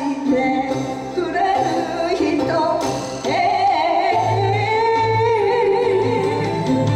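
A woman singing a Japanese song into a microphone over musical accompaniment. About three seconds in she rises to a long held note with vibrato while the accompaniment keeps a steady bass pulse.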